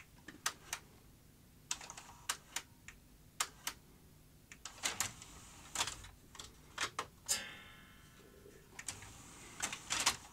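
Scattered sharp clicks and clatter from hands working at an opened Philips DCC900 Digital Compact Cassette deck and its cassette mechanism. About seven seconds in there is a short whir as the mechanism moves.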